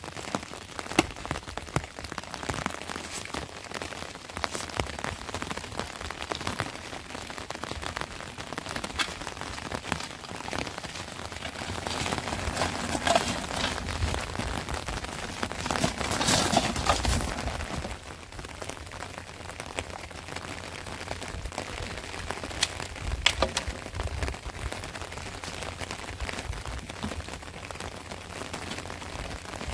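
Steady rain falling on open ground, dotted with short clicks and knocks from a shovel working wet dirt and a metal wheelbarrow. It grows louder for several seconds midway, while the loaded wheelbarrow is pushed.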